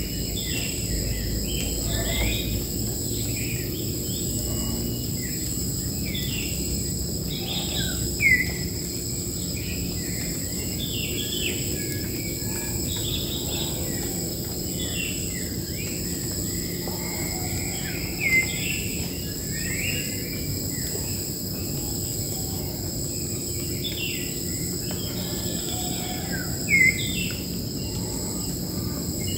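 Wild birds chirping and calling among bamboo over a steady high-pitched insect drone. Three louder, sharp calls stand out, about 8, 18 and 27 seconds in.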